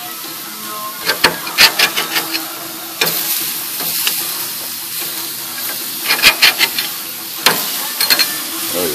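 Venison burger patties sizzling on a metal mesh grill grate while a metal spatula scrapes and clicks against the grate in two bursts, working loose a patty stuck to the grate. The sizzle grows louder about three seconds in.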